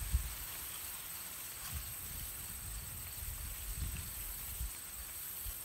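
Insects chirring steadily in a high, thin tone, with scattered low bumps of wind or handling on the microphone.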